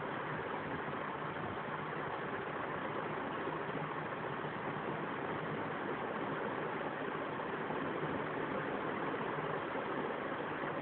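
Steady, even background noise with no separate events, unchanging throughout.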